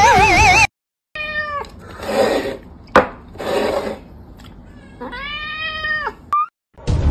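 A wavering sung melody cuts off suddenly; then a cat meows, first briefly, then in a longer drawn-out meow that drops in pitch at the end, with breathy noises and a sharp click between the two meows.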